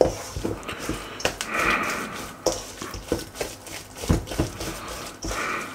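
Wooden spatula working a thick almond-and-butter frangipane paste in a stainless steel mixing bowl, with irregular scrapes and knocks against the bowl. A brief breathy sound comes about one and a half seconds in and again near the end.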